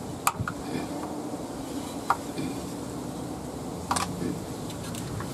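Three short, sharp clicks about two seconds apart as a screwdriver prises rubber bungs out of a car's underside, metal tip knocking against rubber and plastic.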